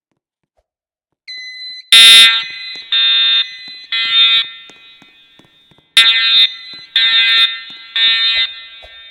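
EST fire alarm horns start up about a second in, sounding the temporal-three evacuation signal. It comes as two sets of three half-second blasts, one second apart, with a pause between sets, and each blast echoes as it fades.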